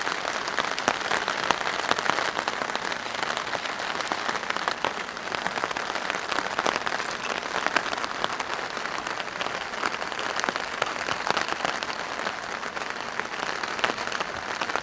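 Steady rain drumming on a plastic patio tarp: a dense, even patter of countless small drop impacts.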